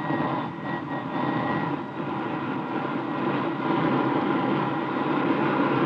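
Radio-drama sound effect of a jet fighter's engine starting up: a steady jet rush that grows louder, with a thin whine in the first second or so.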